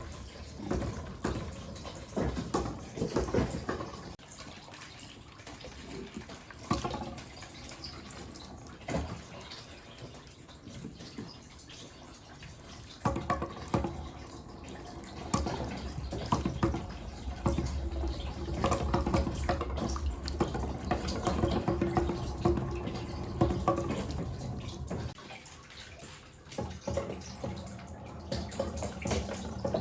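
Water running down a wooden marble-run slider chute, with marbles rolling and clicking against the wood as they are carried along. The rolling grows louder and busier for about ten seconds from the middle on.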